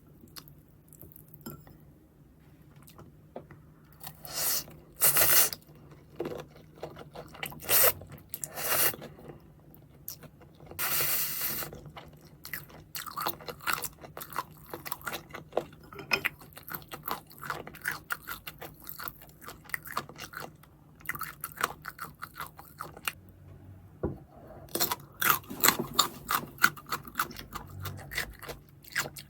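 A person eating crispy fried chicken close to the microphone. A few loud crunching bites come between about four and twelve seconds in, then fast, steady chewing with a brief pause near the end.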